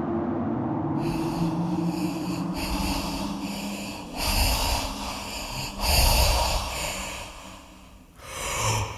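Slow, heavy human breathing: long, drawn-out breaths in and out, each about a second and a half, repeating at an even pace. A low sustained drone sounds under the first few breaths and fades away.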